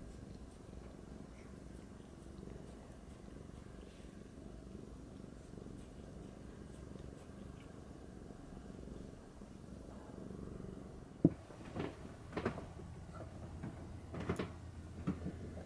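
Domestic cat purring steadily while having its head scratched. Near the end, several sharp knocks and taps.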